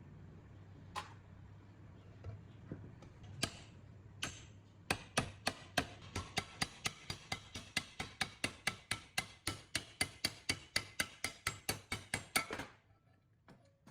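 A few scattered sharp taps, then an even run of sharp clicks at about four a second for some seven seconds, stopping suddenly near the end.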